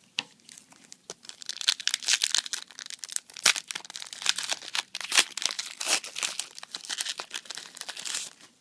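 Foil trading-card booster pack wrapper crinkling and tearing as it is opened, a dense crackle of sharp ticks that stops shortly before the end.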